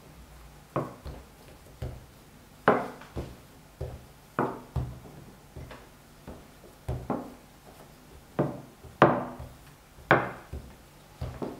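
Wooden rolling pin rolling dough out flat on a wooden board: a string of irregular wooden knocks and short rumbles, about one every half second to second, as the pin strokes back and forth and bumps the board.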